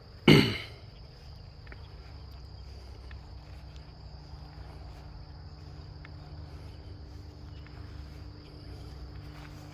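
Crickets or similar insects chirring: one steady high-pitched tone over a faint low hum, with a brief voice sound just after the start.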